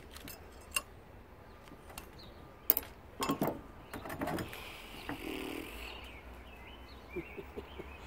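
Scattered metallic clicks and knocks of tools and motor parts being handled during a lawnmower motor teardown, the sharpest about a third of the way in, with faint bird chirps near the end.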